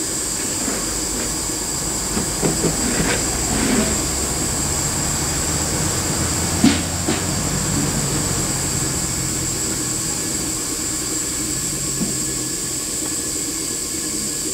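Steam locomotive hissing steadily with escaping steam, with a few metallic clanks early on and one sharp knock about halfway through.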